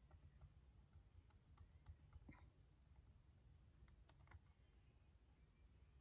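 Near silence with faint, scattered clicks and taps, irregular and a few a second, over a low room hum.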